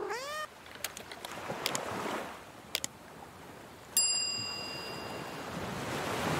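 End-screen sound effects: a short rising swoop at the start, a few quick clicks, and a bell-like ding about four seconds in. Under them, a wash of ocean waves that grows louder toward the end.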